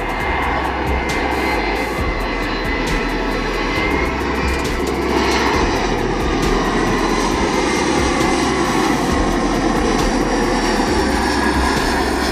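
Jet airliner engines running as the plane passes: a steady rush of noise with a faint high whine that shifts slightly in pitch, growing a little louder about halfway through.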